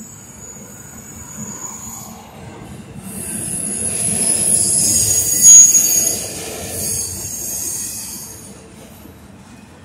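A double-stack intermodal freight train rolling past, its steel wheels squealing high-pitched over a low rumble of the cars. The squeal swells about a third of the way in, is loudest around the middle, and fades near the end.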